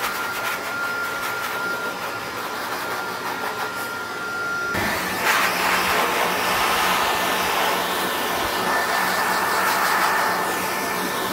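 High-velocity dog dryer blowing air through its hose and nozzle, a steady rush of air with a thin whine. About five seconds in it grows louder and the whine sits higher.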